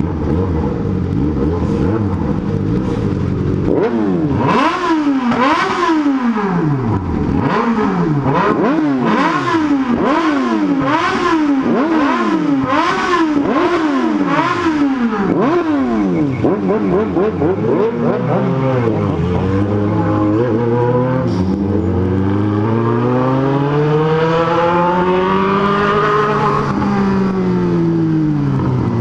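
Inline-four motorcycle engine idling, then blipped over and over in quick revs, about one a second. After a few smaller blips it is revved up slowly in one long rise and fall near the end.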